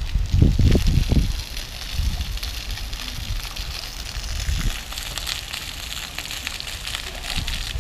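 Splashing of a floor fountain's small water jets falling onto wet paving: a steady hiss of spray that grows a little stronger about five seconds in. A few low rumbles cover it in the first second.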